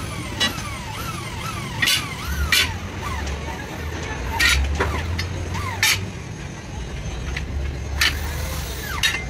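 Sharp metal clanks of steel truck leaf-spring leaves being handled and knocked together in a spring stand, about seven spread through, over a low steady engine hum. A run of short falling whistles sounds through the first few seconds.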